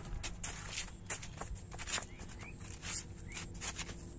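Shuffling footsteps of flip-flops on a paved path, with scattered small clicks and scuffs and a couple of faint short chirps.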